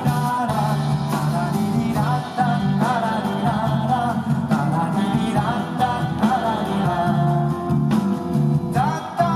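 Live jazz band playing, with a wavering melody line over steady bass notes.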